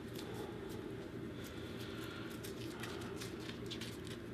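A small folded slip of paper being unfolded by hand, giving irregular crinkles and crackles over a steady low hum.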